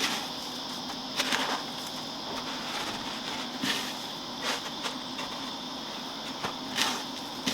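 A few short soft rustles and taps, scattered through, from chicken breast being worked through breadcrumbs and pressed. Under them runs a steady high insect drone.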